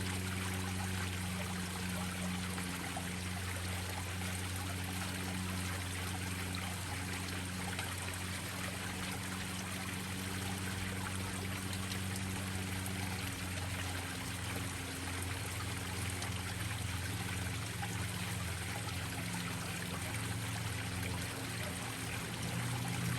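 Waterfalls pouring and splashing steadily into a koi pond, an even rush of water, with a low steady hum underneath.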